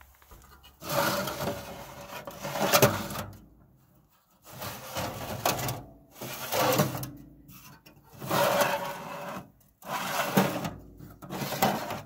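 Drawers of a worn red steel tool chest slid open and pushed shut by hand, about six times, each slide lasting a second or two, several ending in a sharp clack.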